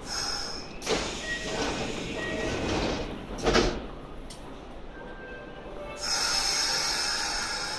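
Kintetsu electric train rolling slowly into the platform close by, with faint squealing tones, a few knocks (the loudest about three and a half seconds in), and a rise of hiss about six seconds in.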